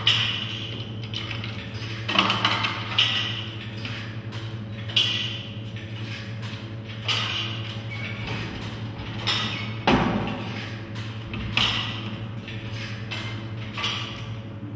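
A vending machine's front being thumped by hand, about nine separate knocks and rattles at irregular intervals, the heaviest about ten seconds in, over a steady low hum.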